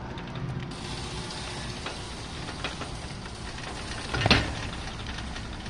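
Garage door opener running steadily as the door closes, with a brief, louder clunk about four seconds in.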